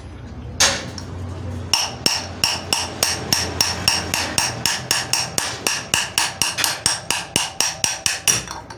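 Hammer striking a steel rod set through a motorcycle's front wheel hub to drive out the worn wheel bearing. One blow comes first, then a steady run of quick, ringing metal-on-metal taps, about four or five a second, that stops shortly before the end.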